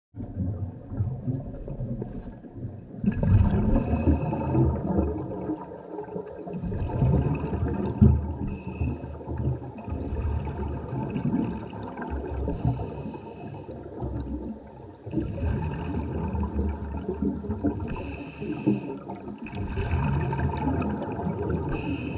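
Scuba diver breathing through a regulator underwater: a steady gurgle of exhaled bubbles, with a hissing inhalation every few seconds.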